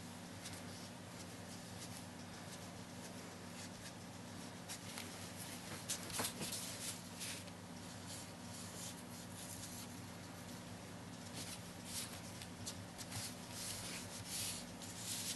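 A sponge dabbed and rubbed across damp card stock, with the paper shifting under the hand: soft scratchy strokes that come in clusters, about six seconds in and again through the last few seconds. A steady low electrical hum runs underneath.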